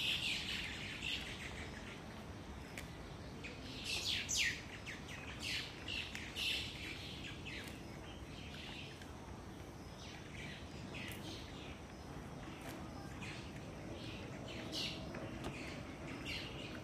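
Small birds chirping in short, high, downward-sliding calls that come in scattered clusters, over a faint steady background hiss.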